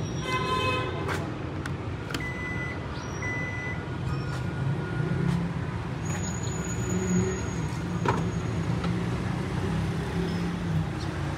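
Steady low vehicle rumble with a few sharp knocks near the start, as the tailgate of a Kia Sportage is pulled down and shut. Two short high beeps come about two and three seconds in.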